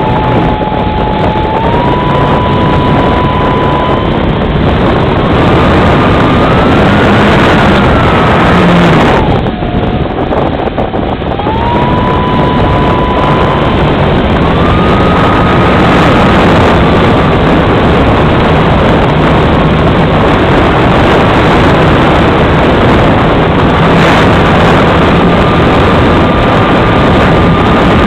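Motor of a radio-controlled model heard from a camera mounted on it: a steady whine whose pitch steps up and down with the throttle, dropping about nine seconds in and picking up again two seconds later, over heavy rushing wind noise.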